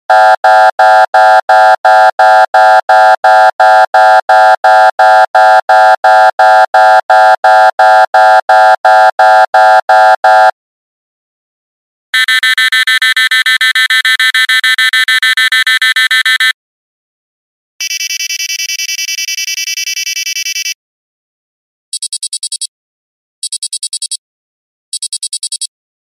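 A run of electronic alarm sound effects, one after another. First comes a loud buzzing alarm pulsing about three times a second for about ten seconds. Then, after short gaps, a higher, rapidly warbling beep alarm for about four seconds, and a still higher, quieter rapid beeping for about three seconds. Last come short bursts of high rapid beeps, repeating about every second and a half.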